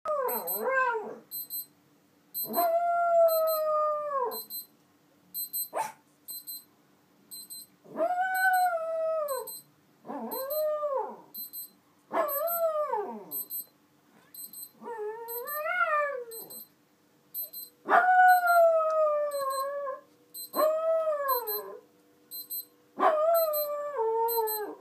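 A small white dog howling along to a beeping alarm clock: about nine drawn-out howls, each one to two seconds long and mostly sliding down at the end, over the clock's rapid high-pitched beeps.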